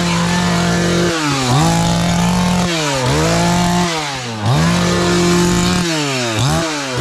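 Two-stroke petrol chainsaw revved hard. Its engine speed drops and climbs back several times as the throttle is let off and squeezed again, with quicker blips near the end.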